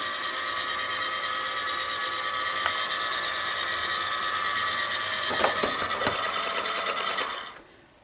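Liectroux B6009 robot vacuum cleaner running with a steady motor whine as it drives itself back to its charging dock. A run of clicks comes about five to six seconds in as it settles onto the dock, and the motor dies away near the end as it docks to recharge.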